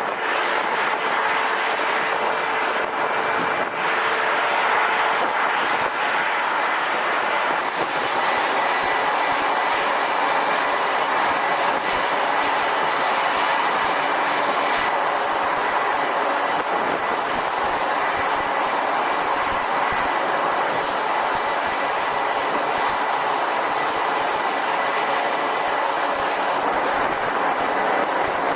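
Loud, steady mechanical roar with several high, steady whining tones over it; the whine changes pitch about a quarter of the way in and again near the end.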